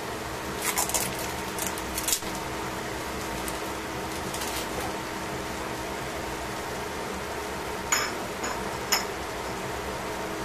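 Vegetables and sauce cooking in a stainless steel pan, giving scattered crackles and pops, two sharper ones near the end, over a steady mechanical hum.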